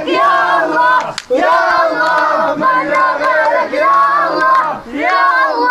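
Protest crowd chanting in sung unison, in short repeated phrases of about a second each, with hand clapping.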